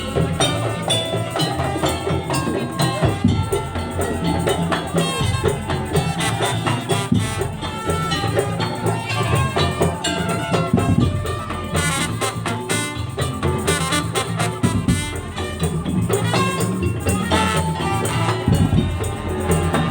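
Madurese tong-tong ensemble playing an instrumental langgam: dense, fast percussion from slit drums, drums and rattles under a pitched melody line.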